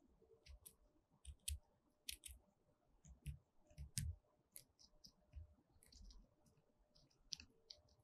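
Grey-headed woodpecker pecking at food wrapped in plastic on a feeder post: an irregular series of sharp taps and clicks, some with a soft low knock.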